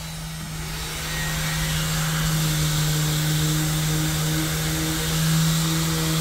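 Electric orbital sander hooked up by hose to a dust extractor: the extractor hums steadily, and about half a second in the sander spins up with a rising whine, then runs steadily while sanding the filled joints of a plywood wall panel.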